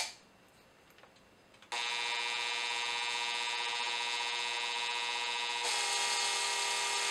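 Near silence for about a second and a half, then an electric drill's motor running with a steady whine. Near the end its pitch dips slightly and it grows a little louder.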